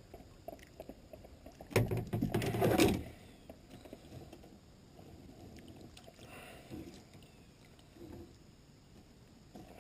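Water splashing and small knocks on a small boat, with a loud flurry of splashing and thrashing from about two to three seconds in.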